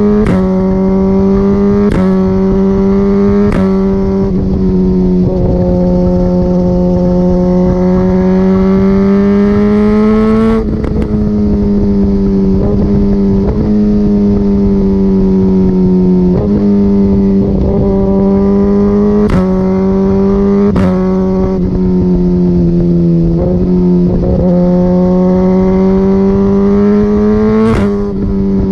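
2017 Suzuki GSX-R1000R inline-four running at high revs through an Akrapovic Evolution full exhaust. The engine note is broken about six times by sharp pops as the quick shifter cuts the ignition for gear changes, with the pitch stepping and drifting between them.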